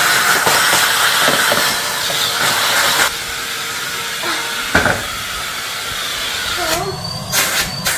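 Numatic James tub vacuum cleaner running, a steady rushing hiss of its suction motor and airflow. It drops slightly in level about three seconds in, with a couple of brief knocks and a short break in the hiss near the end.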